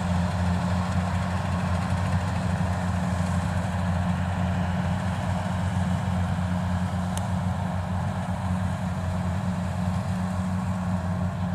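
Diesel engines of rice-harvesting machinery running steadily at an even speed in a paddy field: a steady drone that does not change in pitch.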